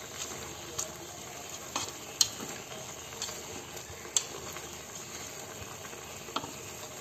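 Chicken pieces and carrots sizzling faintly in an aluminium pot as they are stir-fried, with chopsticks scraping through the food and knocking against the pot in a handful of sharp clicks.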